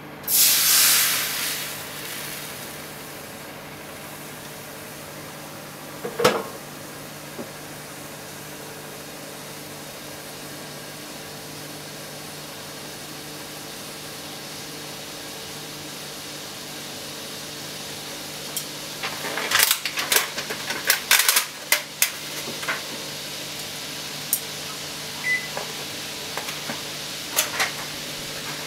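Noodle soup base (mentsuyu) poured into a hot frying pan, hissing loudly for a second or two, then heating with a low steady hiss over a steady hum. A single knock comes about six seconds in, and from about 19 seconds sharp pops and crackles start as the liquid comes to a boil.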